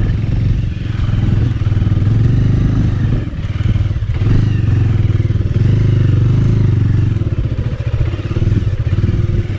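Bajaj Avenger 220's single-cylinder engine running under load as the motorcycle climbs a muddy off-road track, the engine sound dipping briefly a few times as the throttle eases.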